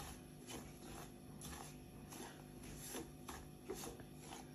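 Silicone spatula stirring and scraping dry-roasting semolina with coconut and dry fruits around a nonstick pan. It makes faint, soft strokes, about two a second.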